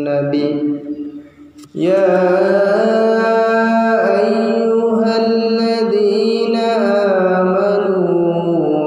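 A single voice chanting a melodic Islamic recitation in long, held, sliding notes, with no instruments. The voice pauses briefly about a second and a half in, then takes up a new held note.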